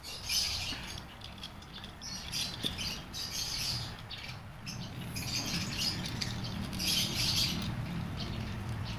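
Handling noise from a spring-loaded scissor-arm phone and microphone holder being tightened and flexed: short scraping, rustling bursts, over a low steady hum.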